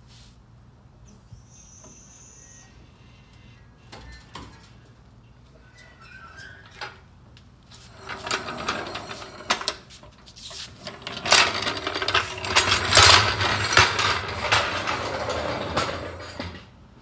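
Steel floor jack pulled out across a concrete floor, its wheels and handle clattering and rattling loudly for about eight seconds, starting about halfway through.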